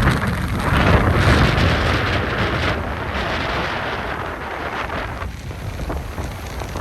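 Strong wind buffeting the microphone over rough surf, a loud rumbling rush that peaks about a second in and eases off gradually.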